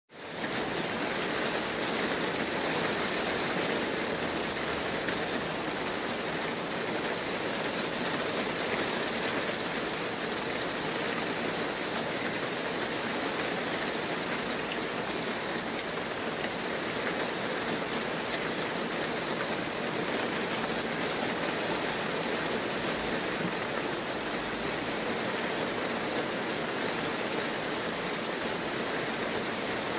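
Heavy rain falling steadily, an even hiss of countless drops with no breaks; it fades in quickly at the very start.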